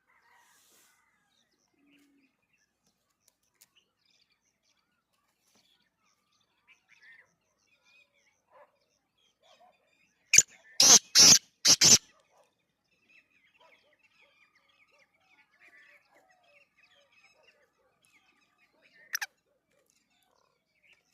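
Teetar (francolin) calling: four loud, shrill calls in quick succession about ten seconds in, and one more near the end, with faint chirping in between.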